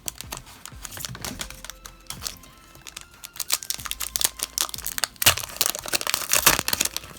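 Foil wrapper of a Pokémon card booster pack being handled and torn open, crinkling and crackling in quick irregular clicks that grow denser and louder in the second half.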